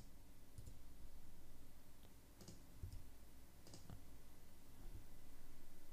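A handful of faint, scattered clicks from a computer mouse and keyboard.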